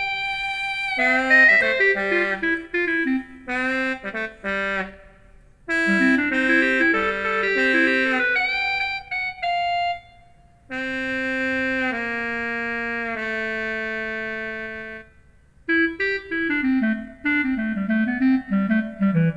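Yamaha PSR-E263 portable keyboard playing a song: a lead melody over a moving bass line. It ends on long held chords about eleven seconds in, then stops briefly. A new tune starts about four seconds later.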